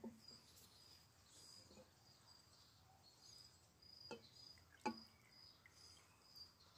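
Near silence with faint insect chirping: a short high note repeated about twice a second. Two soft clicks come about four and five seconds in.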